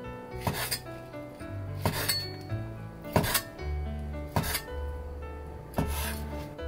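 Background music over sharp kitchen clinks and knocks, one roughly every second, some in quick pairs.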